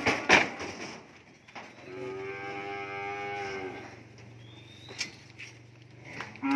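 Cattle mooing: one long, steady moo about two seconds in, and another loud moo starting near the end. Right at the start, two sharp knocks as a cow's hooves strike the truck's wooden ramp and bed while it is pushed aboard.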